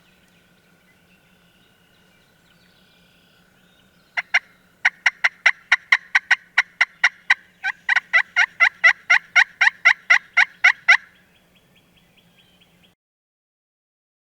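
Turkey yelping: a long, loud run of sharp, evenly spaced notes, about three a second, in two series with a brief pause between them. The sound stops abruptly a couple of seconds after the notes end.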